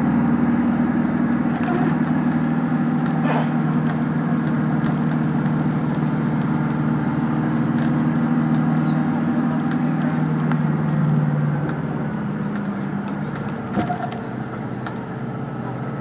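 Bus engine heard from inside the cabin, running steadily with light rattles and clicks from the bus interior. About eleven seconds in, the engine note fades and drops away as the bus eases off.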